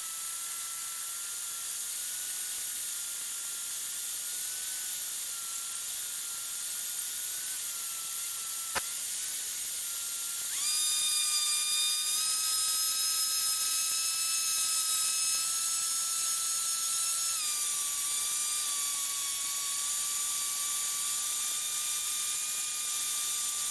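Steady high-pitched electrical whine on a Cessna 152's intercom audio. It gets louder and fuller about ten seconds in, and drops slightly in pitch a few seconds before the end. A single sharp click comes just before the whine changes.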